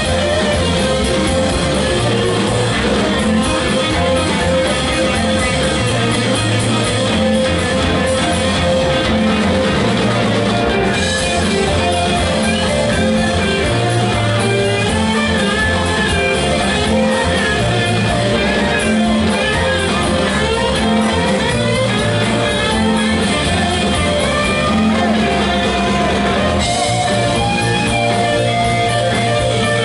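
Live rock band playing, with electric guitars, bass, keyboards and two drum kits.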